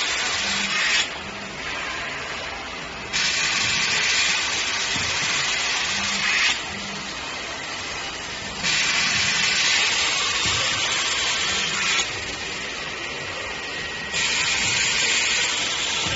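Flatbed screen printing machine working through its print cycle, a loud hiss coming on for about three seconds and cutting off for about two, repeating about every five and a half seconds. A brief louder burst comes just as each hiss stops.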